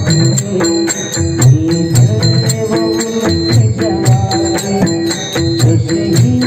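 Instrumental interlude of song accompaniment: sustained melody notes over a steady, evenly spaced beat of percussion strikes.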